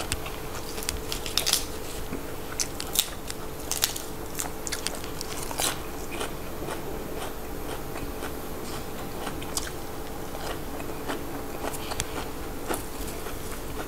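Close-miked chewing of a mouthful of crisp fresh vegetables: irregular crunches and crackles, thickest in the first few seconds and thinning out later.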